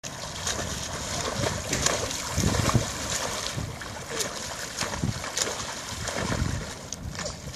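Repeated splashing of a swimmer's front-crawl arm strokes and kicks in a pool, with intermittent low rumbles.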